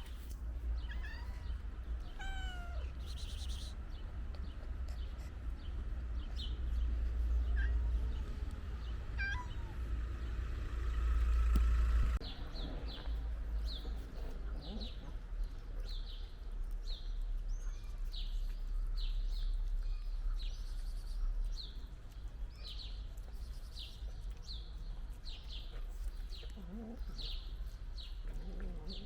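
Cats meowing now and then while eating, with short high chirps repeating about once or twice a second through the second half, over a steady low rumble.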